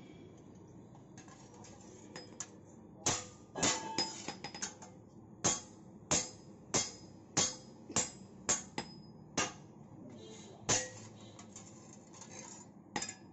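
A hand hammer strikes a steel spade blank on an anvil, each blow giving a short metallic ring. A few light taps come first. Then a steady run of blows follows, about one every two-thirds of a second. The blows stop for about two seconds near the end, then start again.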